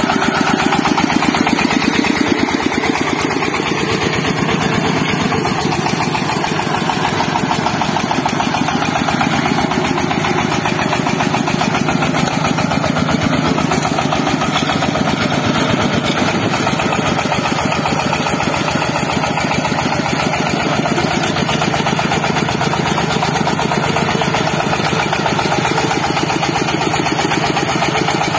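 Single-cylinder diesel engine of a two-wheel walking tractor running steadily while it pulls a trailer over rough ground, its open belt-driven flywheel and pulleys turning.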